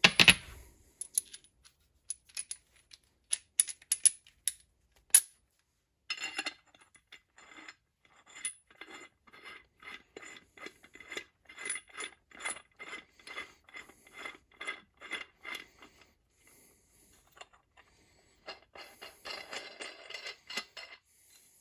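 Steel crankshaft installer tool being threaded by hand onto the PTO end of a chainsaw crankshaft. A few sharp metal clicks, then a run of quick, even clicks, about two or three a second, for some ten seconds, and a short scrape near the end.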